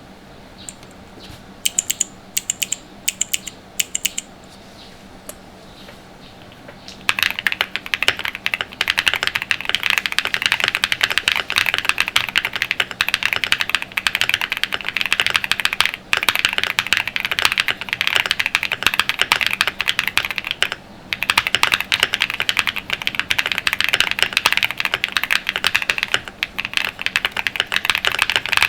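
QK75 mechanical keyboard with pre-lubed Kailh Ashes switches on a POM plate, fully foamed, with QK75 bundle keycaps. A few single keystrokes at first, then fast continuous typing from about seven seconds in, broken by a brief pause about three-quarters of the way through.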